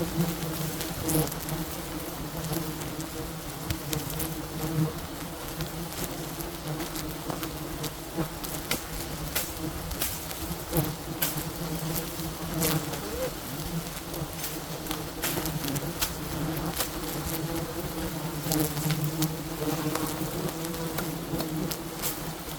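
Swarm of wild bees buzzing in a steady, dense drone, with scattered sharp clicks and taps throughout.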